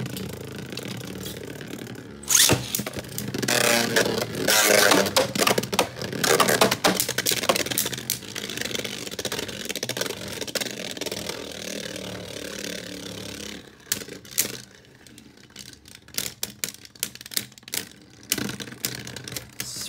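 Two Beyblade Burst tops, Astral Spriggan and Savior Valkyrie, spinning and colliding in a plastic stadium. There is a steady whir with loud, rapid clattering hits from about two to seven seconds in, then quieter spinning with scattered clicks.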